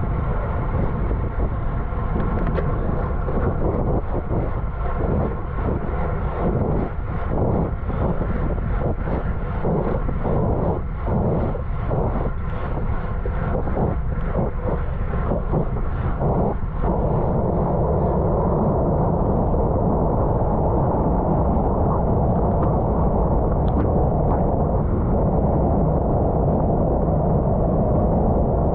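Wind rushing over the microphone of a camera on a racing road bicycle at speed, mixed with steady road noise. Through the first half it pulses about twice a second, then after about halfway it turns into a steadier, slightly louder rush.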